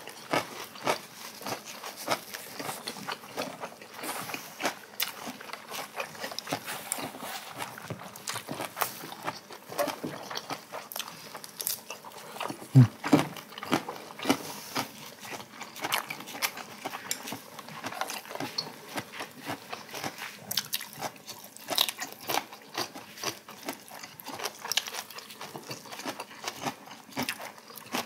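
Close-up eating sounds of two people chewing and crunching fresh vegetables, lettuce wraps and crisp cabbage kimchi, with short clicks of chopsticks against dishes. One louder thump about thirteen seconds in.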